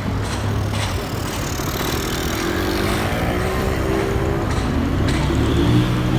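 A vehicle's engine running over a steady rumble, its pitch rising from about two seconds in, as when accelerating.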